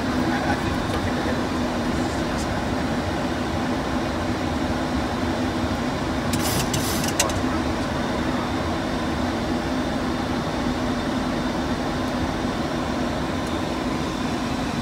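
Steady cockpit noise of a Boeing 737-800 in descent: rushing airflow and air-conditioning with a constant hum. A short burst of clicks sounds about six seconds in.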